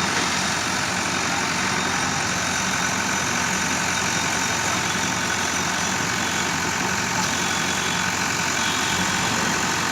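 Diesel engine of a JCB backhoe loader running at a steady idle.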